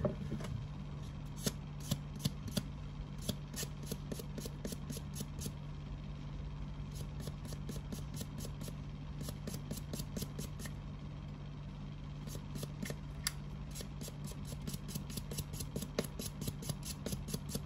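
A Zippo lighter's metal case being polished, heard as quick, short scratchy rubbing strokes in bursts of several a second with brief pauses, over a steady low hum.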